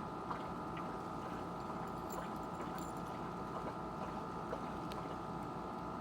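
Riding lawn mower engine running steadily, with a steady whine over a low rumble and a few faint clicks.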